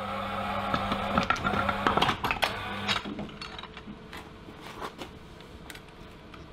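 A small electric motor whirring steadily, stopping about three seconds in. Light clicks and knocks of metal parts being handled and fitted run throughout.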